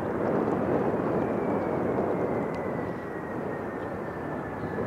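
Jet aircraft passing: a steady rush of engine noise with a faint whine that slowly falls in pitch.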